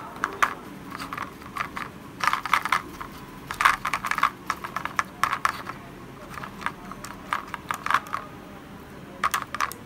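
A small brush dabbing butter into the cavities of a thin clear plastic chocolate mould, making light plastic clicks and taps in short irregular clusters, with quieter gaps between.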